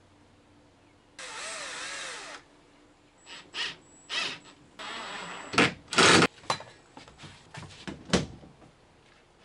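Cordless drill-driver running in two short bursts, driving screws into a plastic RV cabinet door latch. A string of sharp knocks and clicks follows as the door and latch are handled, the loudest a pair about halfway through.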